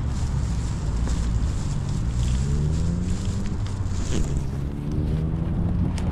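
Wind buffeting the microphone in a heavy low rumble, with a vehicle engine rising in pitch as it accelerates, once about two seconds in and again about four seconds in.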